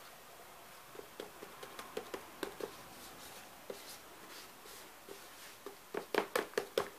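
Light scattered taps and rustles of hands dabbing and handling damp paper and paper towel, ending in a quick run of sharper taps near the end.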